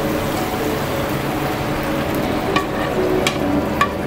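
Puréed tomato poured into hot oil and fried ginger-garlic paste in a non-stick frying pan, sizzling steadily. A few sharp clicks in the second half as a spatula scrapes the last of the purée from the bowl.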